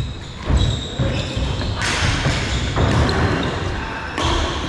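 Badminton being played on an indoor court: thudding footfalls and sharp racket hits, with short shoe squeaks echoing in a large hall.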